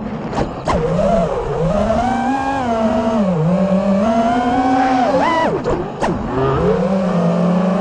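FPV quadcopter's brushless motors whining, recorded on board. The pitch swoops up and down with the throttle, dipping lowest about three seconds in and again near six seconds, then climbing back.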